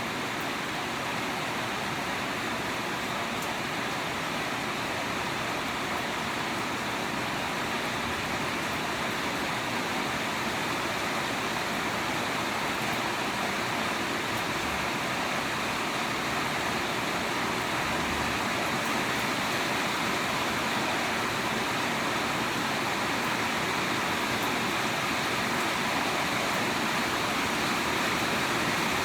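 Steady rainfall, a constant even hiss that swells slightly louder over the stretch.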